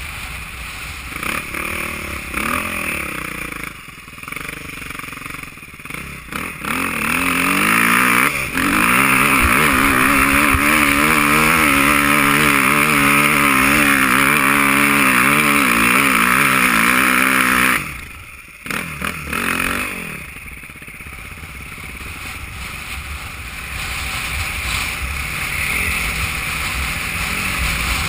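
Dirt bike engine revving up and down, then held at high revs for about ten seconds while climbing a steep hill. It drops off suddenly as the throttle closes and runs quieter through the descent.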